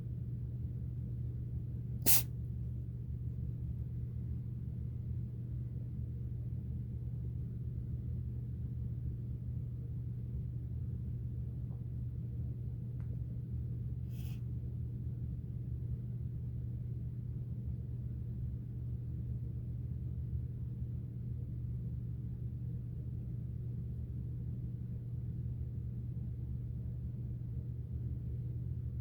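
A cat sneezing twice: a sharp, loud sneeze about two seconds in and a fainter one about twelve seconds later, over a steady low hum.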